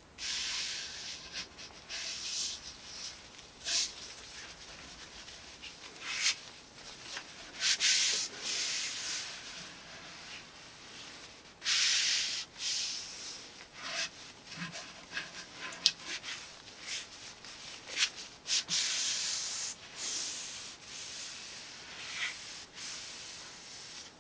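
Cloth rag rubbing along a wooden axe handle, working oil into the wood: irregular hissy rubbing strokes, some brief and some a second or more long.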